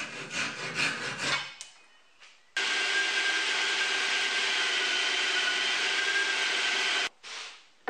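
A handsaw cuts plywood in a few quick strokes. Then a drill runs steadily at one speed for about four and a half seconds, turning the crank rod of the tilt mechanism, and stops abruptly.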